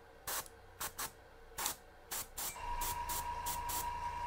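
An airbrush giving about five short, quick bursts of spray as black is misted onto a miniature. About two-thirds of the way in, a steady hum with a high whine sets in and keeps going.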